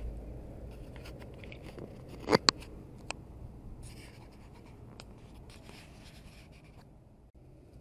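Handling noise on a small SJCAM C100+ camera clipped to a shirt: fabric rubbing and scratching against its microphone, with two sharp clicks about two and a half seconds in and a lighter one just after.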